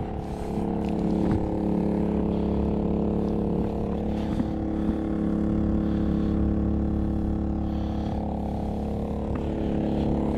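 Maxpeedingrods 3500-watt portable generator running steadily, a constant engine hum that holds one pitch throughout.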